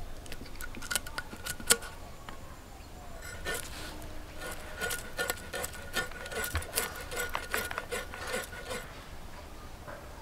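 A tilapia being cleaned against the upright blade of a boti fish-cutter: a quick run of short scraping strokes as scales and flesh are scraped and cut. The strokes are sparse at first and come thickest in the middle stretch.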